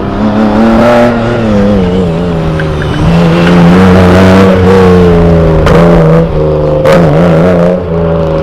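A car engine revving hard, its pitch rising and falling with throttle and gear changes, with three sharp cracks along the way.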